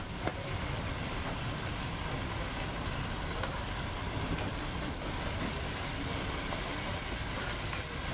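Tomatoes and vegetables sizzling and simmering in a pot on an induction hob, a steady crackling hiss, with a few faint clicks of a ladle against the pot.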